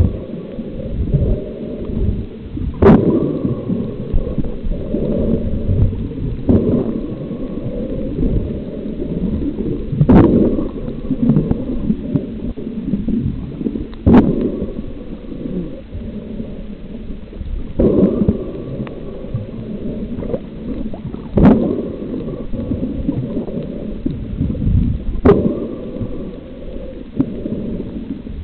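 Muffled underwater sound picked up by a submerged camera while snorkelling: a steady low churning rumble of moving water, with a sharper crack about every four seconds.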